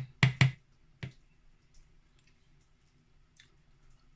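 A metal spoon knocking against a plastic mixing bowl: two quick knocks near the start and one more about a second in, then only faint clicks.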